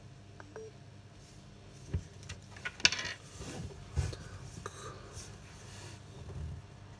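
A smartphone being handled in the hand: a few sharp clicks and knocks of fingers and grip against the phone's body and glass, with a brief rubbing rustle after the loudest knock about three seconds in.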